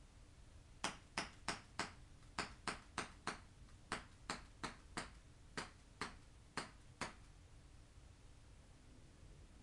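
HFC M1911-A1 non-blowback airsoft pistol running on propane, firing about sixteen sharp shots in quick succession, roughly three a second with a few short pauses.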